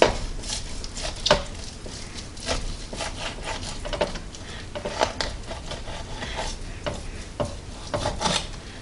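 Knife and fork working through roasted turkey breasts in a metal roasting pan to cut and pull out the cooking twine: irregular clicks and scrapes of the utensils against the meat and pan, over a soft rubbing.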